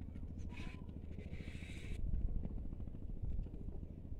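Wind buffeting the microphone in a low, unsteady rumble. A brief hiss comes about a second in.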